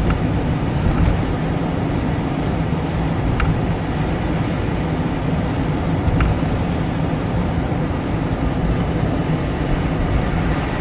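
Steady road noise of a car driving on the highway, heard from inside the cabin: engine and tyre drone, with a couple of faint ticks.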